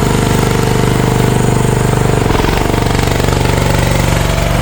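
The CFG MX15RX mini excavator's engine running steadily at working speed with a fast, even pulse; its note shifts and dips briefly about two seconds in.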